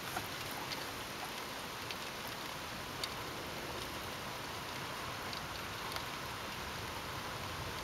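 Steady rain from a thunderstorm, with a few sharp drops ticking close by.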